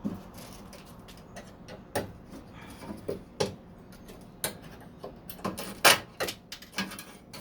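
Irregular clicks and knocks of car door trim and hardware being handled and pried loose, about a dozen sharp taps at uneven spacing, the loudest about six seconds in.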